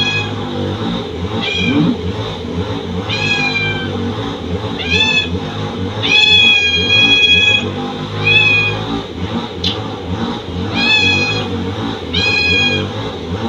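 A cat meowing over and over, about eight drawn-out meows spaced a second or two apart, the longest about six seconds in.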